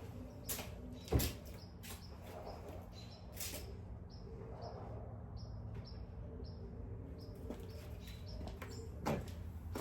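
Steady low hum of a shop's background, with a few sharp knocks and, in the middle, a quick run of short high chirps.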